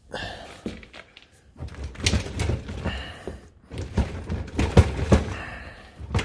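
Irregular knocks, clunks and scrapes from handling a built-in dishwasher while it is worked loose, with the loudest knocks about four to five seconds in.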